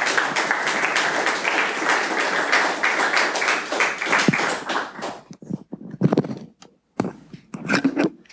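Audience applauding for about five seconds, then dying away into a few scattered knocks and handling sounds.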